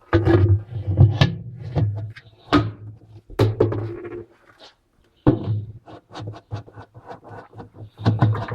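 Washing machine motor stator being worked onto the splined drive shaft: a run of knocks, clicks and scraping clunks of plastic and metal parts, densest in the first four seconds, with sharp knocks about two and a half, three and a half and five seconds in.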